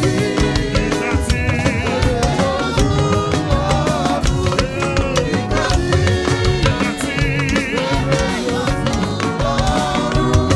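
Live church praise and worship music: singing over a band with drums keeping a steady, fast beat.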